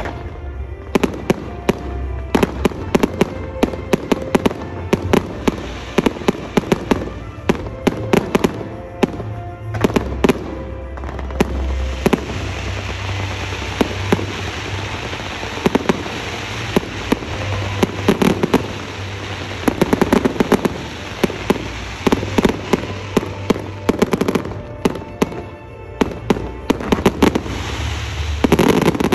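Fireworks display: a rapid, irregular run of sharp bangs, with a dense crackling hiss from about twelve seconds in that lasts through most of the rest.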